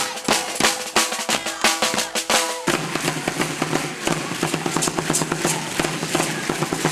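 Marching drummers beating bass and snare drums in a quick, steady rhythm. About two and a half seconds in the sound cuts to a denser, more even rattling and drumming with a steady low hum underneath.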